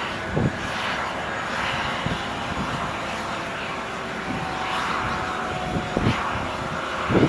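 Airbus A320 airliner's twin jet engines running at low taxi power as it rolls along the runway after landing: a steady rushing jet noise with a faint whine. A few brief low thumps come through.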